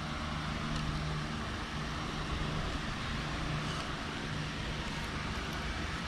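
Steady outdoor background noise: an even hiss with a low hum, like distant road traffic. No distinct tool clicks stand out.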